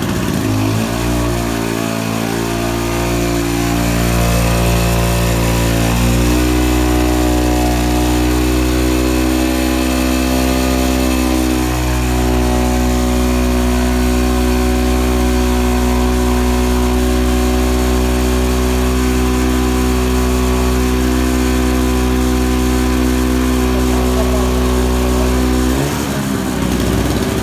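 Small 1 kW two-stroke petrol generator running under the load of a microwave oven, with a steady engine note. The note shifts in the first seconds and again about six seconds in, then holds steady until it changes near the end.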